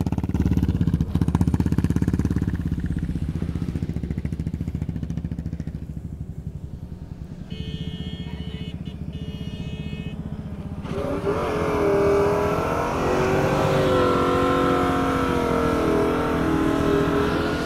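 Off-road 4x4 truck engine running hard, its note wavering up and down as it revs, growing louder from about eleven seconds in.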